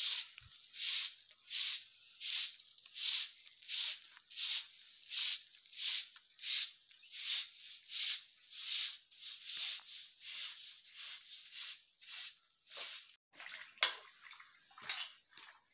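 Short-handled grass broom sweeping a bare dirt yard, a regular swish about every 0.7 s. The sweeping stops near the end and gives way to one sharp knock and light splashing as vegetables are handled in a pan of water.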